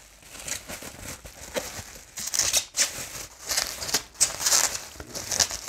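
Plastic bubble-wrap sleeve crinkling and rustling in irregular bursts as it is handled and a book is slid out of it.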